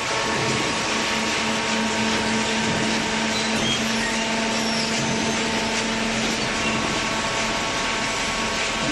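Hydraulic cardboard baler running: its electric motor and hydraulic pump give a steady hum and whine.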